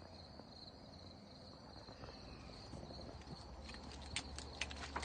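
Steady high-pitched insect trill, joined over the last second or so by a run of sharp clicks and taps.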